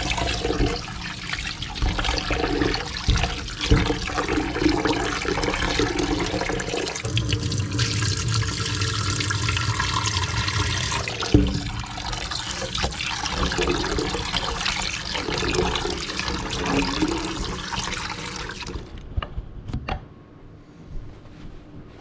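Water running from a tap and splashing over fish fillets being rinsed clean, with some handling noise in the stream; the water shuts off near the end.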